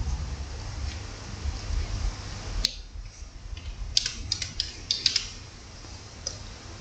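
A few short, sharp clicks and taps over a low steady rumble: one click a little over halfway through the first half, then a quick cluster of clicks about a second later.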